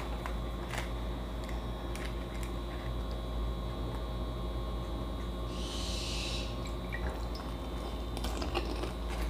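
Quiet handling of pani puri with chopsticks: a few faint clicks of the chopsticks against the puris and plates. About six seconds in there is a short wet splash of the spiced pani water, over a steady low room hum.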